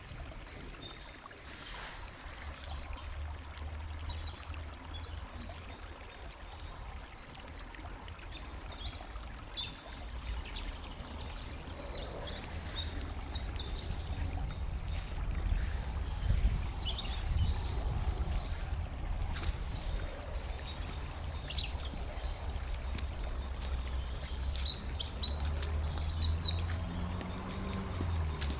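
Outdoor ambience: scattered bird chirps and calls over a low rumble, with a thin, steady high-pitched tone that comes and goes.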